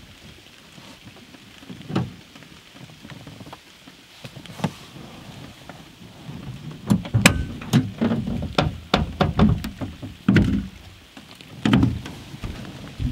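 Rain tapping on a truck-bed camper shell, with scattered knocks and handling noises from someone moving about inside. The taps and knocks come thick and fast from about seven seconds in.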